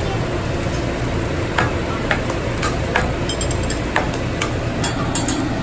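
Hibachi chef's metal spatula and steel seasoning shaker clicking against each other and the flat-top griddle, sharp clicks about every half second, over a steady sizzle of fried rice cooking on the hot griddle.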